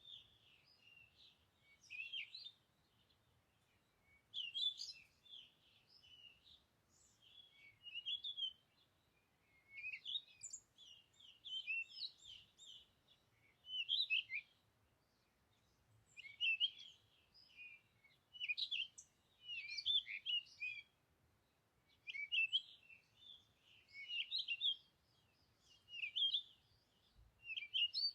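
Small birds chirping in short, repeated phrases of high, quickly gliding notes, about one phrase every two seconds.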